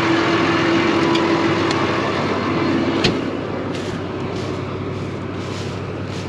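Diesel engine of farm harvest machinery running steadily, with a steady whine over it that stops about three seconds in, ending with a click.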